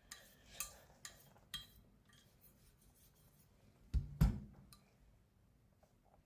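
Straight razor worked on a DMT 8K diamond plate: a few light clicks and faint scraping in the first two seconds, then two louder knocks about four seconds in.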